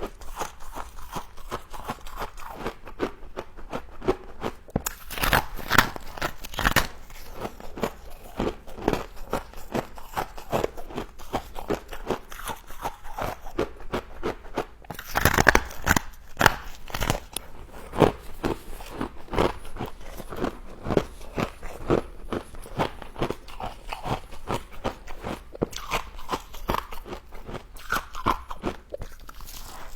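Frost being bitten and chewed, a steady run of irregular crisp crunches with louder clusters about five seconds and fifteen seconds in.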